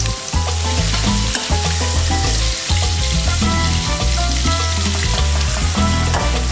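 Chopped onion and garlic sizzling in hot oil in a metal pot, with a spatula stirring near the end. Background music plays underneath.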